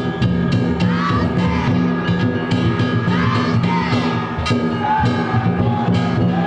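Danjiri festival music from the float, a drum and ringing bells played in a steady rhythm, with voices chanting and shouting over it.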